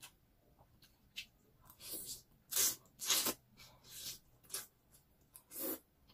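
Close-up mouth sounds of slurping creamy carbonara fettuccine: a run of short, wet slurps as forkfuls of noodles are drawn into the mouth, loudest around the middle and again near the end.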